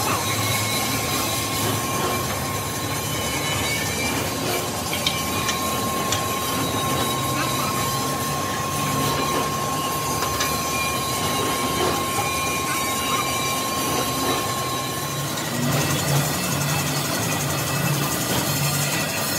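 Steady drone of heavy machine-shop machinery running, with a thin high whine that stops about three-quarters of the way through, a low pulsing hum, and a few faint metallic clicks.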